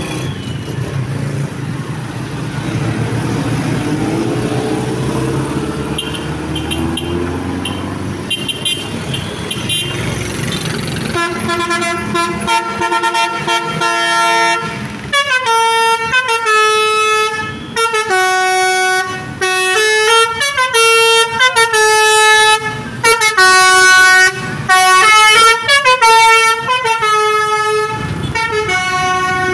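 Basuri V3 telolet multi-tone bus horn, after about ten seconds of vehicle noise. About eleven seconds in it sounds a held chord, then from about fifteen seconds plays a tune of short notes stepping up and down in pitch.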